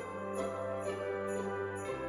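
Background music: held chords with a steady jingle-bell rhythm over them.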